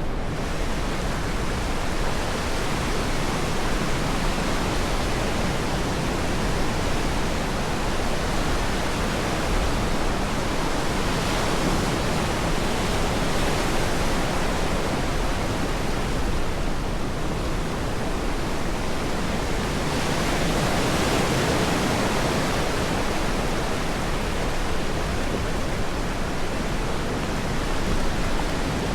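Ocean surf washing on a sand beach: a steady rush of breaking waves that swells louder about a third of the way in and again past the middle.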